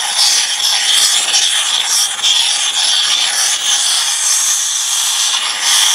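Hielscher UP50H ultrasonic processor with an MS-10 sonotrode sonicating dried mushrooms in solvent at full amplitude in continuous mode: a steady, loud, high-pitched hiss and crackle of cavitation in the liquid, with a thin high whine over it. The cavitation is tearing the mushrooms' cell walls to extract them into the solvent.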